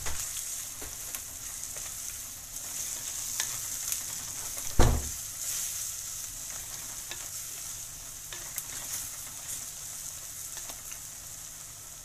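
Onions and spices sizzling in hot coconut oil in a clay pan while a slotted wooden spatula stirs and scrapes through them, with scattered small clicks and one loud knock about five seconds in.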